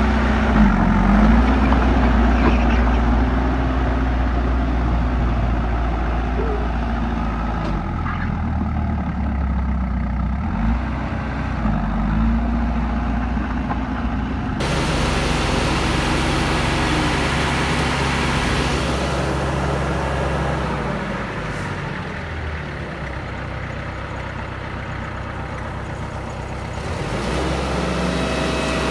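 Heavy diesel engines of a bulldozer and dump truck running steadily under work, with small changes in engine pitch. The sound changes abruptly about halfway through.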